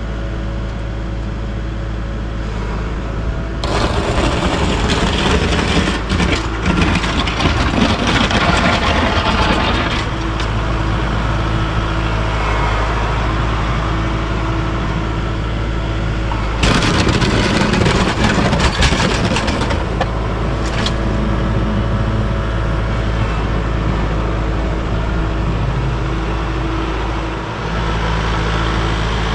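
Kubota MX5400 utility tractor's four-cylinder diesel engine running steadily while plowing snow with a rear blade. Two louder stretches of noise come over it, about four to ten seconds in and again about seventeen to twenty-one seconds in.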